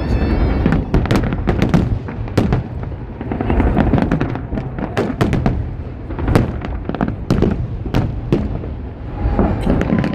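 Fireworks display: many sharp bangs of bursting shells in quick succession, over a constant low rumble of echoing booms.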